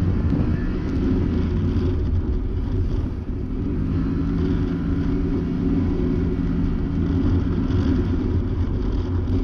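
Can-Am Maverick Sport X mr side-by-side's engine running steadily under way on a trail, its pitch fairly even with small rises and falls.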